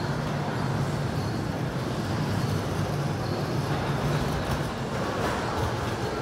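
Steady railway-station ambience: an even, low rumble and hubbub with no distinct events.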